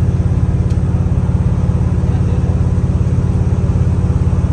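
Ride noise inside a moving vehicle: a steady, loud low rumble with a fast, even flutter.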